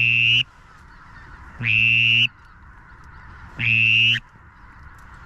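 A drawn-out nasal honking call repeated evenly, once every two seconds, each call about half a second long and holding one pitch.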